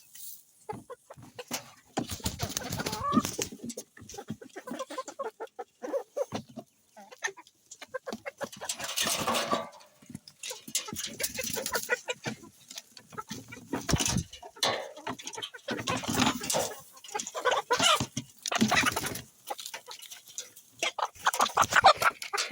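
Chickens clucking, in irregular bursts with short gaps between them.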